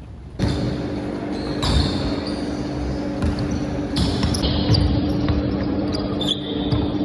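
A basketball bouncing on a gym floor in irregular thumps during pickup games, over a steady mechanical hum, with a few short squeaks.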